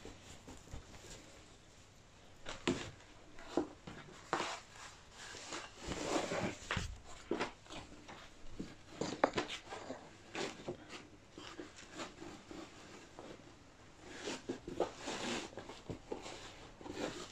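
Rustling of a football jersey being handled and fed through a picture frame, in soft, irregular rustles with a few light knocks.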